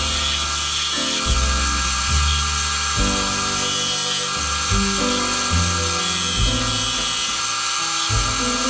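Background music with a bass line that steps from note to note, over a steady high-pitched whine.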